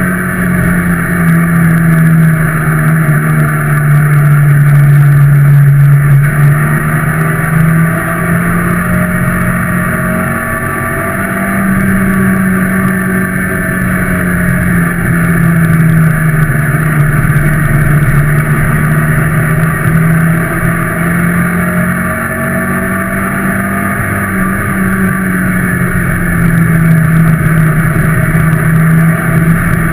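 A ministock racing car's engine running hard on a dirt oval, heard from inside the cabin, its note falling and rising again several times as the driver lifts and gets back on the throttle round the track.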